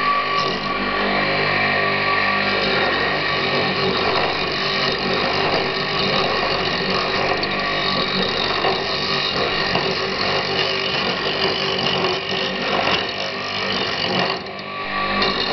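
Homemade wood lathe running, its electric motor giving a steady whine, while an axe blade held on the tool rest scrapes and cuts the spinning elm blank in a dense, rough cutting noise. The cutting eases briefly near the end.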